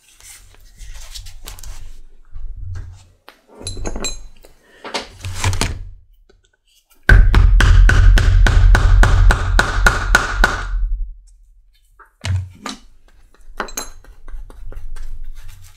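A metal setting tool struck rapidly with a hammer against a granite slab, about five or six ringing taps a second for nearly four seconds, setting a metal fastener in a leather knife sheath. Before that, quieter rubbing of a damp paper towel wiping antique stain off tooled leather.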